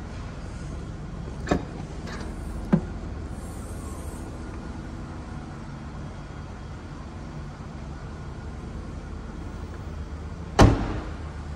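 Seat Ibiza hatchback tailgate: two sharp clicks a second or two in as it is unlatched, then a loud thump about ten seconds in as the tailgate is shut, over a steady low hum.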